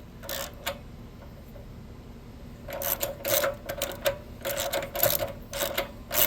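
Ratchet wrench clicking in short strokes as a spark plug is turned down. The clicking starts about three seconds in and comes in quick bursts a few times a second.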